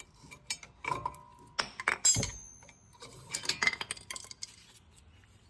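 Metal clinks, knocks and scrapes as the old brake pads are pried out of a Mini Cooper's front brake caliper bracket, in two clusters, a few hits leaving a short metallic ring.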